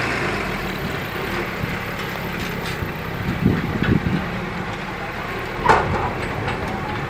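Heavy earthmoving machinery (bulldozer and dump trucks) with their diesel engines running steadily, plus a short sharp knock or clank just before six seconds in.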